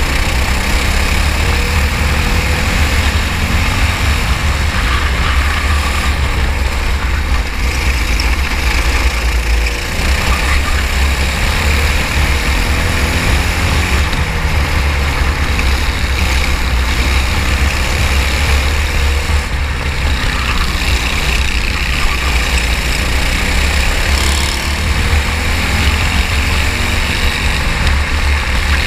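Racing kart engine running at speed, its pitch rising and falling again and again through the lap, over a heavy low rumble.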